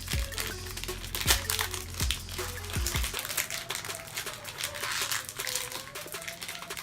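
Candy bar wrapper crinkling as it is opened, with many small rapid crackles, over background music whose low beat drops out about three seconds in.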